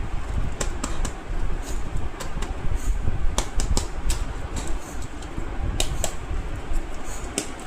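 Scattered light clicks and taps, as of plastic toy animals being handled and set down, over a steady low rumble.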